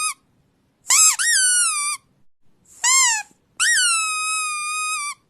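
A squeaky toy squeezed again and again, played as a sound to provoke a dog's reaction. It gives a run of high squeaks that rise and fall, and the last squeak near the end is held long and steady.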